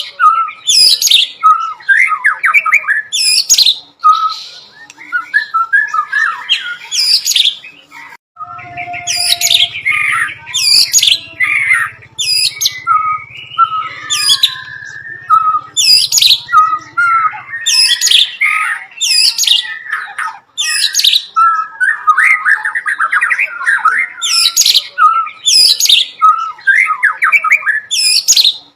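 White-rumped shama (murai batu) singing continuously, its song packed with mimicked bar-winged prinia (ciblek) calls. Repeated sharp, high, falling notes alternate with fast chattering phrases.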